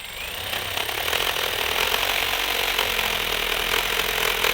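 Electric saw with a reciprocating blade cutting into a wooden windowsill at an angle, running steadily after building up over the first second. The angled cut lets the blade avoid binding in the stuck piece.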